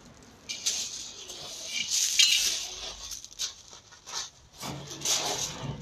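Feet scuffing and crunching on loose gravel in short, irregular bursts during scuffling play-fighting. A low steady drone comes in near the end.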